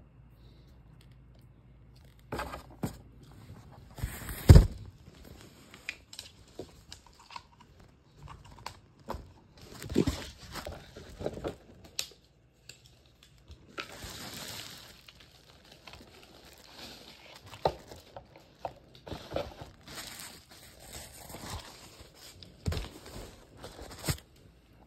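Packaging being handled during an unboxing: crinkling plastic, rustling and tearing, with scattered clicks and knocks and one heavy thump about four and a half seconds in.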